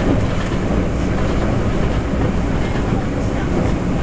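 Steady running noise inside a Taroko Express tilting electric train (TEMU1000) travelling at speed: wheels on rail heard through the carriage, an even noise weighted to the low end.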